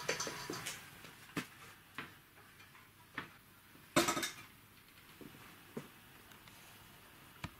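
Scattered metal clinks and knocks as a homemade compressor trolley, with a steel tank, fittings and gauges on a metal frame, is wheeled and set down upright on a concrete floor. The loudest knock comes about four seconds in, as it is stood upright, with a short ring after it.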